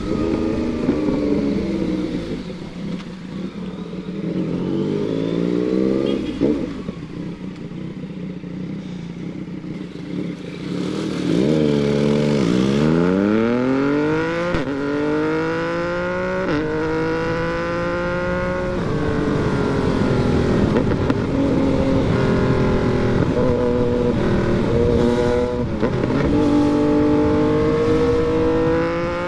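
Yamaha MT-09's inline-three engine under way. Its speed falls off over the first several seconds, then about eleven seconds in it pulls hard and climbs through several upshifts, each ending in a sudden drop in pitch, before settling to a steadier run with small rises and falls.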